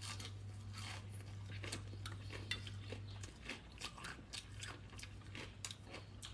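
Close-up chewing of raw leafy greens eaten with papaya salad: a string of small crisp crunches and mouth clicks, over a low steady hum.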